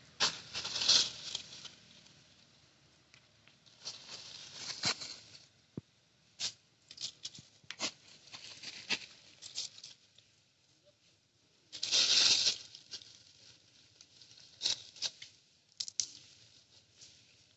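Irregular bursts of rustling and crackling, loudest about twelve seconds in, with many sharp clicks scattered between them.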